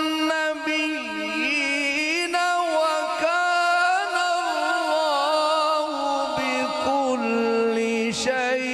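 A man chanting Islamic devotional verse in a slow melodic style, drawing out long held notes with wavering ornaments. His pitch settles lower about six seconds in.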